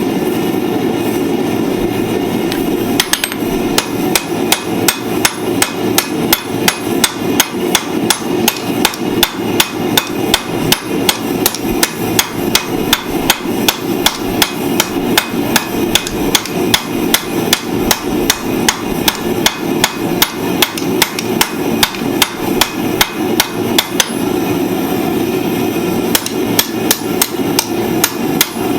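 Blacksmith's hand hammer striking hot steel on an anvil while forging tongs: a few blows, then an even run of about three a second, a short pause near the end, and blows again. A steady low hum runs underneath.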